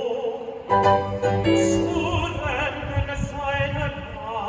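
Music: a singing voice holding long notes with a wide vibrato over sustained instrumental chords and a low bass line.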